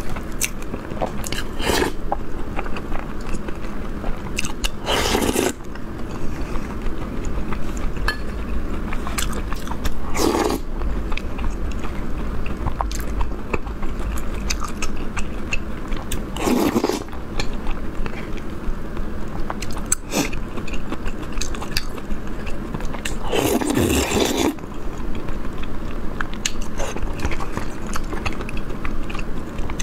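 Close-miked chewing and biting of food, a sesame flatbread stuffed with meat. The chewing is continuous, with a louder burst every five to seven seconds.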